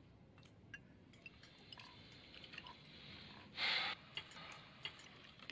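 Faint scattered clinks of cutlery and glassware at a dinner table, with a short rushing hiss about three and a half seconds in.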